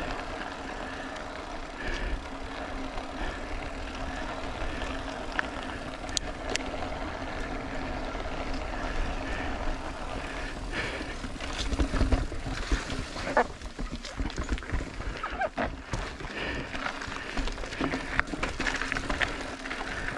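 Mountain bike rolling downhill over rock and dirt trail, a steady rolling hum, turning into irregular knocks and rattles from about twelve seconds in as it runs over rough ground.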